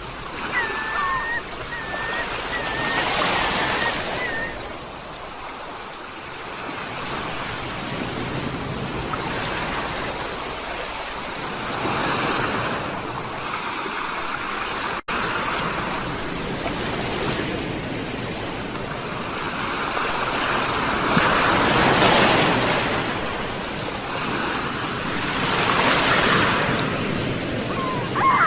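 Sea waves washing ashore, the surf swelling and falling back every few seconds. Gulls call over it: a run of short, repeated cries in the first few seconds and another cry at the very end. The sound cuts out for a split second about halfway through.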